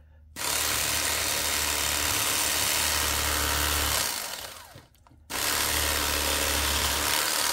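Electric fillet knife cutting through a catfish, its motor running with a steady buzz. It starts just after the beginning, winds down when released about four seconds in, and starts again about five seconds in.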